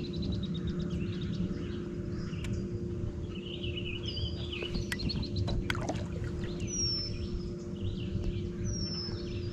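Songbirds calling and singing around a lake, with trills, warbling phrases and two falling whistles near the end, over a steady low hum and rumble.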